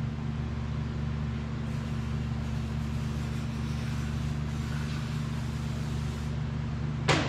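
A steady low machine hum with a faint hiss over it, unchanging throughout. A short sharp sound comes near the end.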